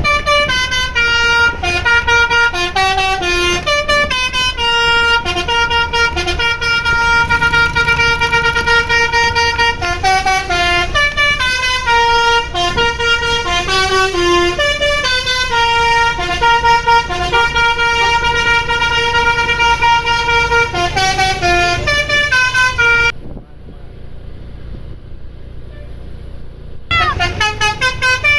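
Basuri V3 multi-tone 'telolet' bus air horn playing a stepping melody of loud horn notes over a low rumble. The horn stops for about four seconds late on, leaving only the rumble, then starts up again near the end.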